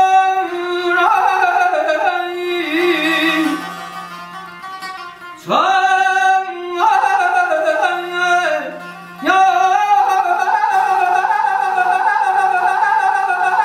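Azerbaijani mugham singing in the Segah mode: a male voice holds long, ornamented vowel notes with a wavering trill, over a plucked long-necked lute. The voice fades back twice and comes in again with a swoop up to a high held note, about five and a half seconds in and again about nine seconds in.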